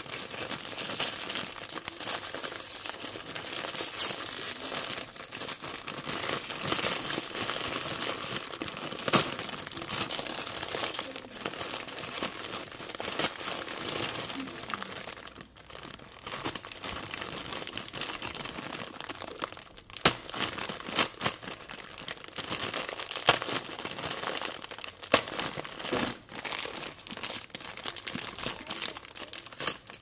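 Plastic instant-ramen packaging crinkling and crackling continuously as hands pull open a multipack bag and tear open a single foil-lined noodle packet.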